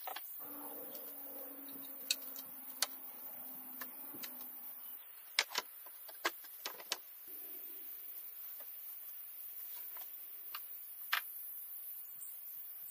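Scattered sharp clicks and light knocks of wood and metal being handled, with a quick cluster about five to seven seconds in as a small metal pin is set into a wooden board. A faint steady hum lies under the first few seconds.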